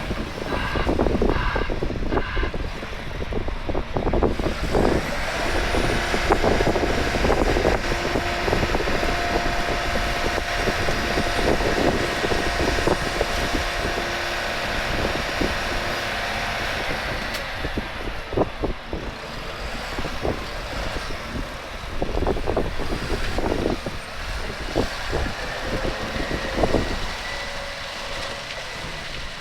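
Volvo excavator and dump truck at work: diesel engines running with many clanks and knocks throughout, and a steady high whine for roughly the first half.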